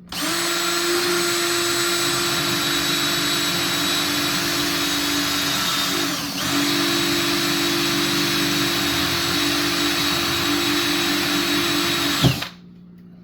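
Power drill running steadily as it drills through a black plastic retainer clip, slowing briefly about halfway through before picking up again, then stopping abruptly near the end with a click.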